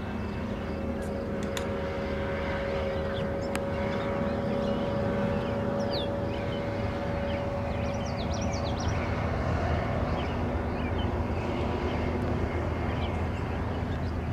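Jet airliner engines running, a steady rumble with a held whine that drifts slightly lower. Birds chirp briefly about two-thirds of the way through.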